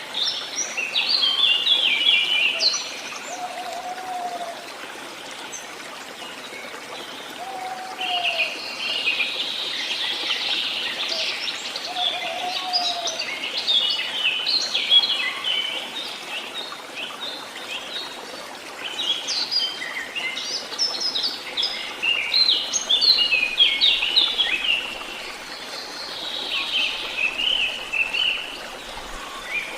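Songbirds singing busy, overlapping phrases over a steady hiss of running water. A lower, short arched call repeats about every four seconds in the first half.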